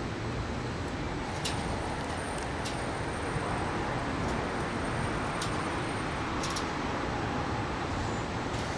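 Steady hum of distant road traffic, with a few faint high ticks scattered through it.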